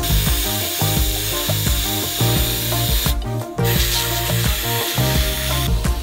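Pneumatic air ratchet running on a bolt at an RV's leaf-spring hanger, a steady hissing whir that stops briefly about three seconds in and then runs again until near the end. Background music plays underneath.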